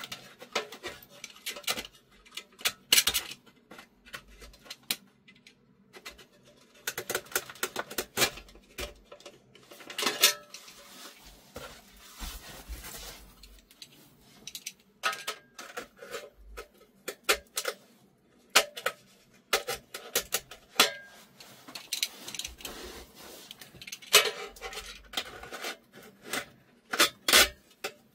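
A utility knife cutting the glued spider (the corrugated centering suspension) out of an 18-inch loudspeaker: irregular scraping and clicking, with knocks as the speaker is handled.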